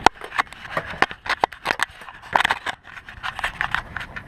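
A quick, irregular run of sharp clicks and scrapes with rustling: close handling noise over dry leaves and twigs.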